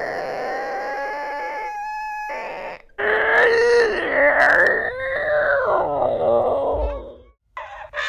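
Two people in turn imitating an animal call with their voices: first a steady held note for about three seconds, then, after a short break, a louder call that slides up and down in pitch for about four seconds.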